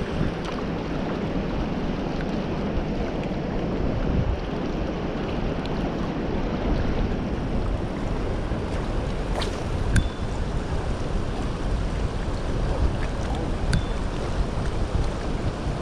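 Fast-flowing river rushing steadily, with wind buffeting the microphone. A few sharp clicks come through, about ten and fourteen seconds in.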